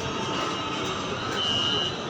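Metro train running, heard from inside the carriage: a steady rush of running noise, with a thin high whine coming in near the end.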